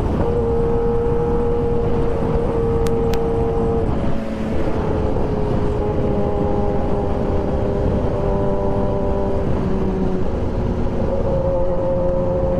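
Kawasaki ZX-10R's inline-four engine running hard at highway speed over heavy wind rush. The engine note holds steady, sags a little about four seconds in and again near ten seconds, then rises near the end.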